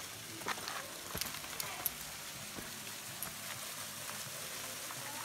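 Small waterfall splashing into a rock pool: a steady hiss of falling water, with a few faint clicks and knocks in the first two seconds.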